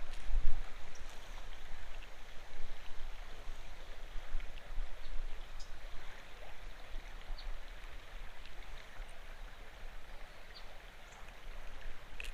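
Creek water running steadily over a shallow bed, with a few faint ticks scattered through it.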